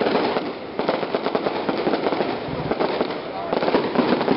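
Fireworks crackling overhead: a dense, rapid run of small sharp bangs.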